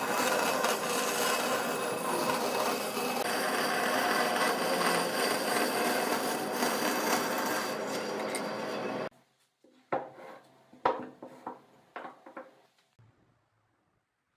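Band saw cutting a circle out of a thick hardwood board: a steady whirring rasp of blade in wood over the motor's hum, which stops abruptly about nine seconds in. It is followed by a handful of sharp, separate knocks of wooden pieces being handled, then quiet.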